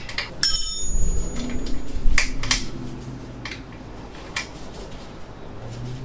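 A metal wrench dropped onto a concrete floor, clanging with a short bright ring about half a second in, followed by a few light metal clicks of tools on the dirt bike's chain adjuster bolts.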